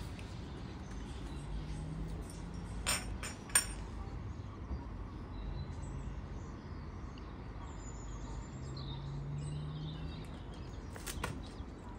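A few sharp knocks or clicks: three in quick succession about three seconds in and one more near the end. They sit over a steady low hum, with faint bird chirps between them.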